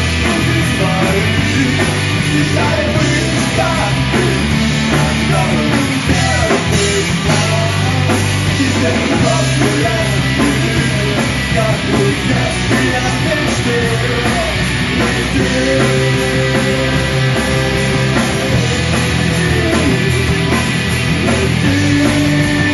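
Live rock band playing loud and steady, with electric guitar, bass guitar and drum kit.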